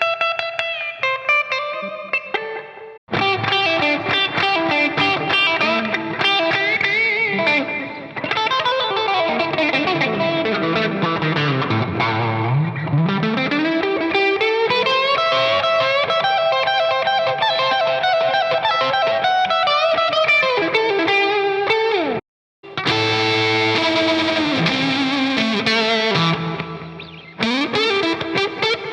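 Isolated electric guitar parts played on a Gibson Les Paul Special Doublecut, distorted and with effects, in several separate passages with brief breaks between them. In the middle a held note swoops down in pitch and back up.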